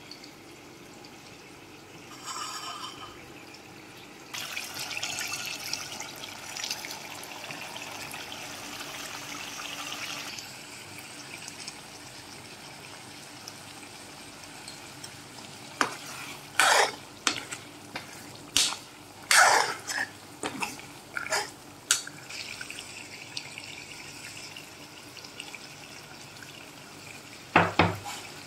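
Mutton frying in oil in a karahi, with a hissing sizzle for several seconds early on, then a series of sharp knocks and clinks of a spoon against the pan, and two more near the end.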